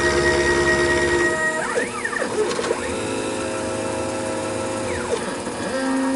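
Milling machine taking passes with a 1/4-inch ball end mill across a cast iron block: a steady whine of several tones from the machine's drive motors. The whine shifts pitch twice, with short gliding sweeps, as the machine's moves change.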